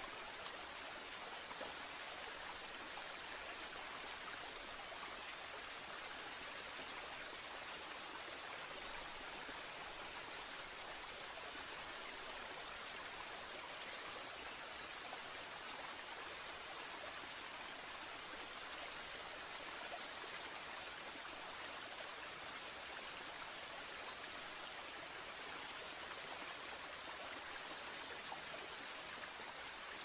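A small waterfall pouring over a low rock ledge into a stream: a steady rushing and splashing of water, bright and hiss-like with little low rumble.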